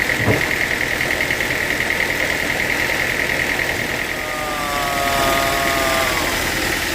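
Sawmill machinery running steadily, an engine with a fast pulsing hum. From about four to six seconds in, a tone sinks slightly in pitch.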